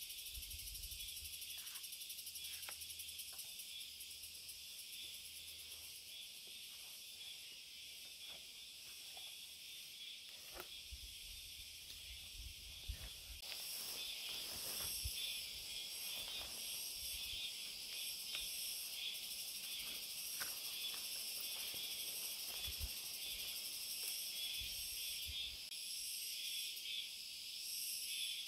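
A steady, high-pitched chorus of insects buzzing in a summer forest, growing louder about halfway through. Occasional short knocks, rustles and low thuds from someone working in the undergrowth sound beneath it.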